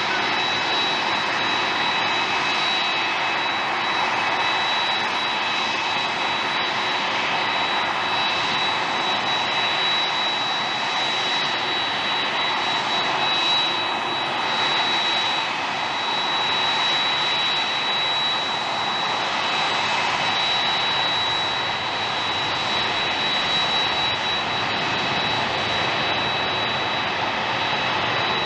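Boeing 787-8 Dreamliner's twin General Electric GEnx-1B turbofans at takeoff thrust on the takeoff roll: a steady rushing jet noise with a high whine held on one pitch.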